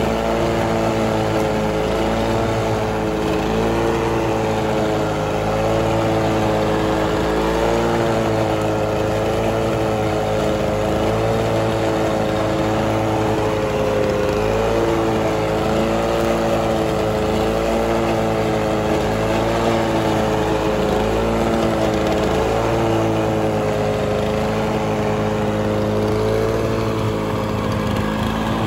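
Lawn-Boy 22260 Commercial mower's two-cycle 6.5 hp Duraforce engine running steadily, its pitch wavering slightly up and down.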